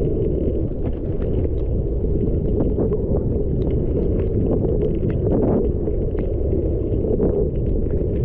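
Wind buffeting a camera microphone: a loud, steady low rumble with faint scattered ticks.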